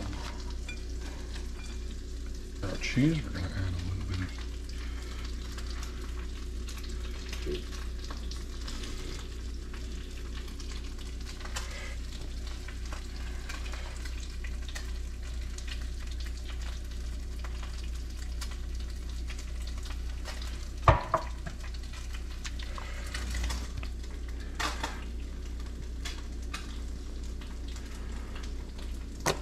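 Steady sizzle of food frying in butter in a pan, over a low hum. A single sharp knock about 21 seconds in.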